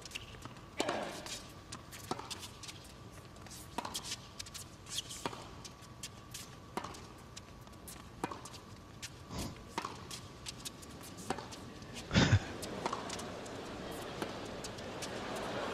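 Tennis ball hit back and forth in a long slice rally: sharp racket-on-ball strikes about every second and a half, with one much louder thump about twelve seconds in.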